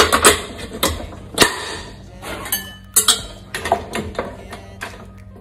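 Kitchen equipment being handled: a run of sharp clicks, knocks and clinks, thickest in the first second and a half and then sparser.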